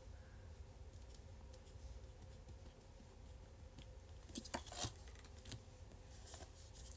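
Quiet room hum with faint rustling and scattered soft clicks of close handling near the microphone. A short cluster of sharper clicks comes a little past the middle.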